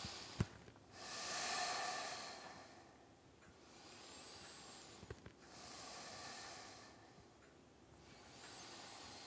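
A person's slow, deep breathing close to the microphone: about four long, hissy breaths in and out, each lasting one and a half to two seconds. There is a small click just after the start.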